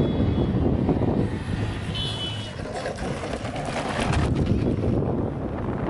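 Road traffic: a motor vehicle running past with a steady low rumble, and a stretch of rattling about three and a half seconds in.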